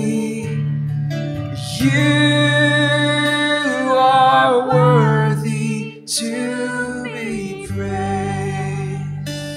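Worship band playing a slow song: a woman and a man singing the line together in long held notes over strummed acoustic guitar and bass guitar, easing off near the end as the song closes.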